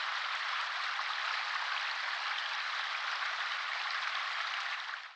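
A steady, even hiss that cuts off abruptly at the end.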